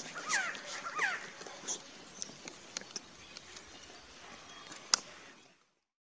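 Resplendent quetzal calling: three descending whistled notes about two-thirds of a second apart in the first second or so, then quieter background with a few faint clicks. A sharp click about five seconds in, and the sound cuts out shortly before the end.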